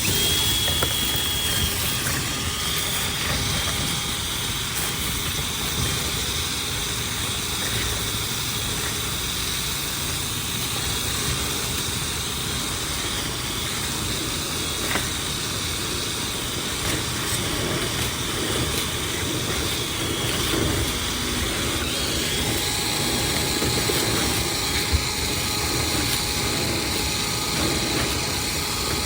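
Cordless drill spinning a rotary dryer-vent cleaning brush through the duct. It runs steadily with a high whine, and the whine shifts slightly about two-thirds of the way through.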